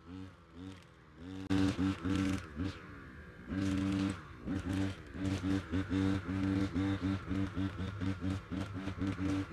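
Brush cutter's small engine revving up and down in quick bursts, about two a second, as it cuts grass and weeds; it gets louder about one and a half seconds in.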